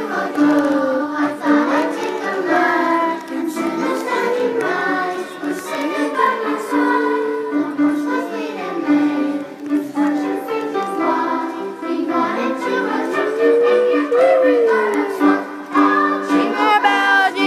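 A song: a group of voices, children's among them, singing over a musical backing with a steady held low note.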